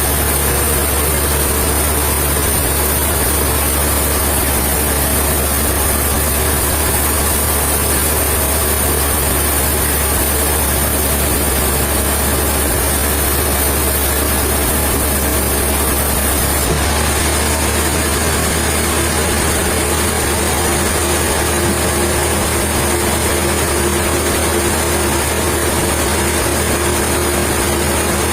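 An engine running steadily at an even speed, a low hum with a high hiss over it; the sound shifts slightly about seventeen seconds in.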